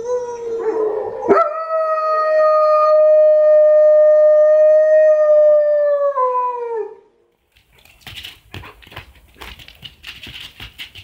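German Shepherd dog howling: one long, steady howl of about five seconds that drops in pitch as it ends. After it come short scuffling noises.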